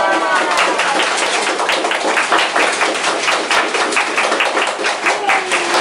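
A small group of people clapping their hands, a dense, uneven patter of claps that runs on without a break.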